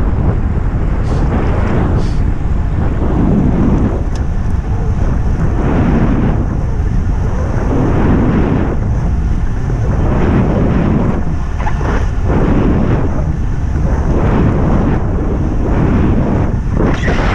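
Heavy wind buffeting the microphone of a camera carried along at racing speed in a road-bike criterium, rising and falling in gusts.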